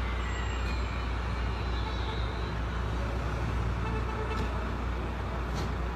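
Truck engine running with a steady low rumble, mixed with faint voices in the background.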